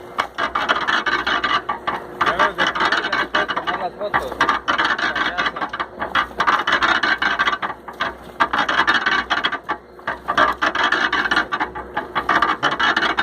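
Laundry being washed: continuous, irregular rubbing and scraping of wet clothes with many small knocks.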